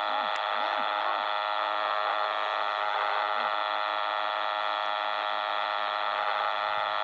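Electric RC plane's 200 W brushless outrunner motor and propeller running at steady throttle in cruise: an even, unchanging buzzing whine.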